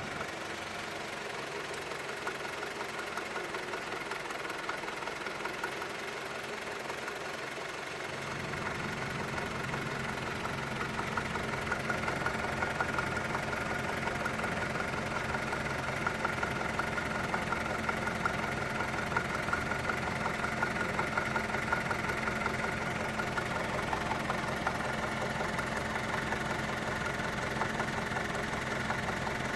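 Mazda 6 1.8 inline-four engine idling warm with a rapid knocking, which the owner takes for a worn clutch release bearing, since it stops when the clutch is pressed. About eight seconds in the sound gets louder and deeper.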